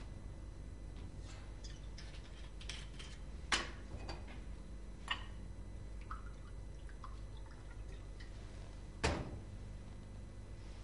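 Liquid poured from a glass bottle into a glass, with a few sharp clinks of glass on glass. A louder knock comes about nine seconds in, as the bottle is set back down on the cabinet top.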